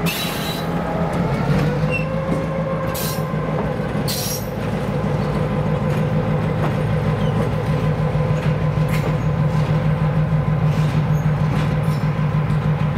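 Diesel switcher locomotive and its train rumbling over the rails as they move off: a steady low engine drone, with a faint higher tone that rises about a second in and a pulsing throb that grows louder in the second half.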